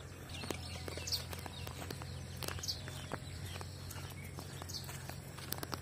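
Donkey walking on a dirt track, its hoof steps coming as soft irregular clops, while small birds chirp now and then over a steady low hum.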